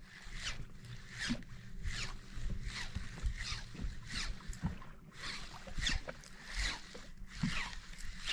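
A flock of birds giving short, high, falling calls over and over, about two a second, over a low rumble of wind and water.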